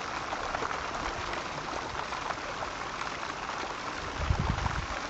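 Fountain jets splashing steadily into a stone basin pool, a continuous patter of falling water. A brief low rumble comes about four seconds in.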